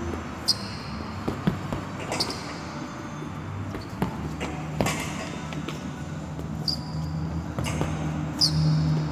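Gloved punches landing on a hanging Everlast heavy bag: about eight irregularly spaced thuds, some followed by a short high ring.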